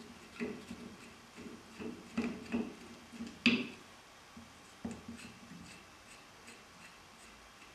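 Light clicks and taps of hands working on ceiling fan parts, a handful of small knocks, the loudest about three and a half seconds in, then only faint ticks.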